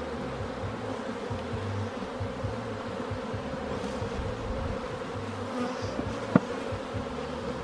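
Honeybees buzzing steadily around an open hive, a continuous hum from a colony exposed during inspection. About six seconds in there is a single sharp knock.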